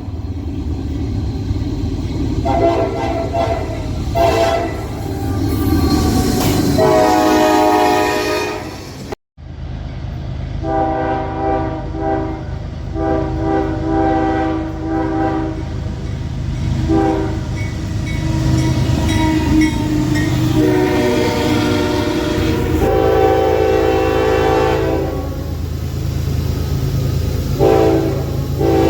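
Locomotive chord air horn sounding a string of blasts of varying length, several notes together, over a steady low rumble from the train. The sound drops out abruptly about nine seconds in, then the blasts resume.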